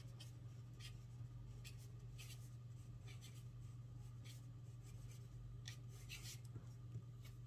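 Felt-tip pen scratching on paper in short, faint strokes as capital letters are written one after another, over a low steady hum.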